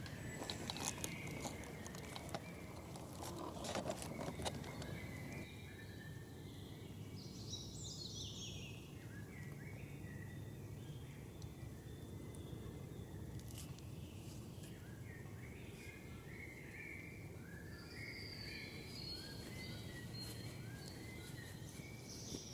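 Birds singing in short chirping phrases, one with a falling sweep about eight seconds in, over a steady low rumble. Crackling clicks come in the first few seconds.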